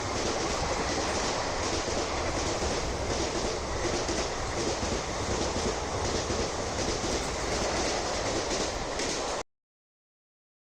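Coaches of a superfast express train rushing past at speed, with a regular clatter of wheels over the rail joints. The sound cuts off abruptly near the end.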